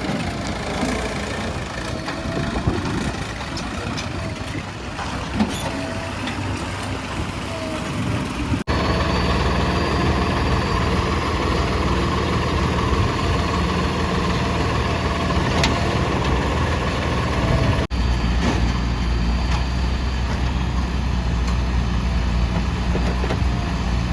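Diesel engines of backhoe loaders and tractors running steadily at work, in three cut-together stretches, each with an even engine note.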